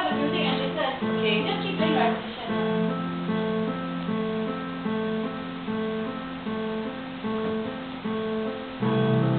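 Electronic keyboard played in a steady, repeating pattern of held notes. Deeper bass notes come in near the end and the playing gets a little louder.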